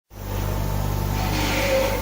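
Horizontal CNC brake-lining drilling machine running: a steady electrical-mechanical hum, with a whirring swell shortly before the end.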